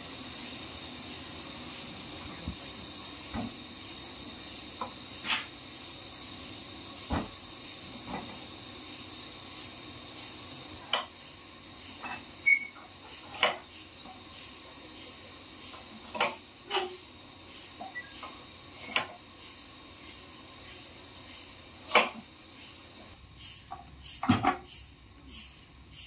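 Scattered sharp metal clanks and knocks as a log is rolled into place and clamped on a steel sawmill carriage, over a steady hiss. The clanks come thicker and louder in the second half.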